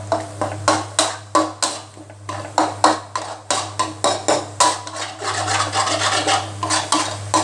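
Metal spatula scraping and clattering against a wok in quick, irregular strokes, stir-frying scrambled egg with nam (Thai fermented pork), over a steady low hum.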